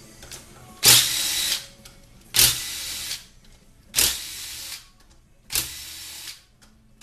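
A power tool runs in four short bursts about a second and a half apart, with a fifth starting at the end. It is spinning out the 7 mm bolts that hold the transmission control module and solenoid assembly to a 6L80 transmission's valve body.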